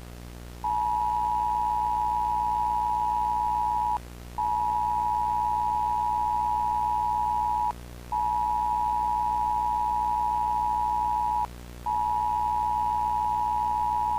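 Emergency alert attention tone: a steady single-pitch electronic beep sounded in four long blasts of about three seconds each, with short breaks between them, starting just under a second in. A low steady hum lies underneath.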